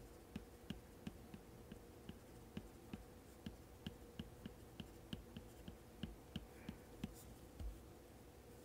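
Faint, irregular ticks of an Apple Pencil tip tapping and stroking on an iPad Pro's matte screen protector, a few a second, over a low room hum.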